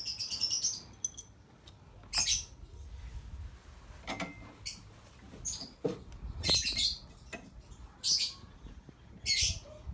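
Ratchet wrench clicking in about five short bursts, spaced a second or more apart, as the cylinder head stud nuts of a Vespa PX 150 engine are loosened; a high chirping sound at the very start.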